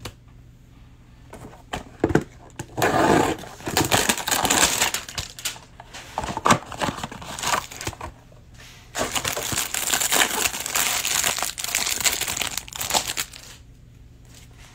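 A cardboard hanger box of Donruss Optic football cards being opened and the plastic wrapping around the card stack crinkled and pulled off. The crackling comes in two long stretches, starting about three seconds in and again about nine seconds in, and stops shortly before the end.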